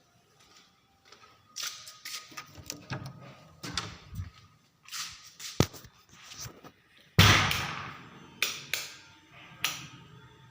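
A string of irregular knocks, clicks and thumps, with one loud bang about seven seconds in that rings off over about a second.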